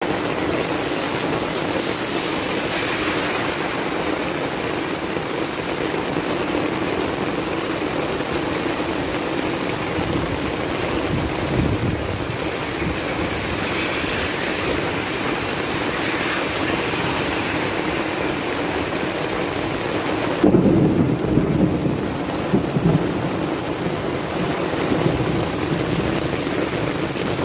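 Heavy rain falling steadily, a dense even hiss. About two-thirds of the way through it turns deeper and a little louder, with a few louder surges.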